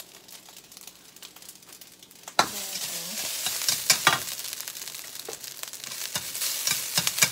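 Garlic fried rice sizzling in a stainless steel skillet while a metal spatula stirs and scrapes it, with sharp clicks of the spatula on the pan. It is fairly quiet for the first two seconds or so, then the sizzle jumps suddenly louder and stays loud.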